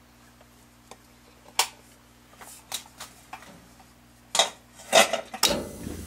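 Rheem RGDA gas furnace burners lighting off a glowing hot surface igniter: a few light ticks, then loud clunks about four and a half and five seconds in and a low rumble as the gas catches, followed by the steady rush of the burner flames.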